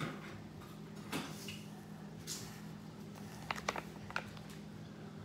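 Plastic pouch of Himalayan pink salt crinkling and rustling as it is handled, with a quick cluster of small sharp ticks about three and a half seconds in as salt is taken out by hand.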